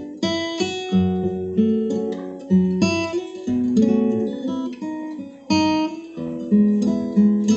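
Solo steel-string acoustic guitar played fingerstyle: plucked chords and melody notes, a fresh attack about every second, each note ringing and fading before the next.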